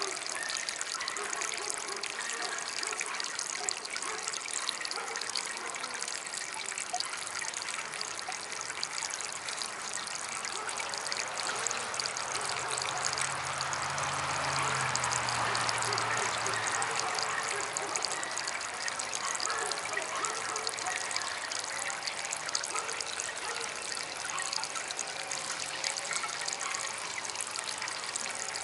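Small DIY water fountain trickling steadily. A low hum swells and fades away around the middle.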